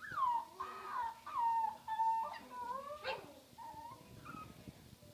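Puppies play-fighting, one whining in a string of short high whines that slide down in pitch, about five in the first three seconds, with a sharp short cry about three seconds in and a few fainter whines after it.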